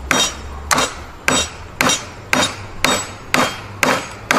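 A hammer driving a nail into a block of wood with a steady run of even blows, about two a second, each a sharp knock with a brief ring.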